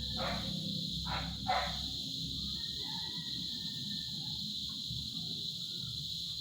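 Three short animal calls in quick succession within the first two seconds, followed by fainter wavering calls. Under them runs a steady low hum and hiss.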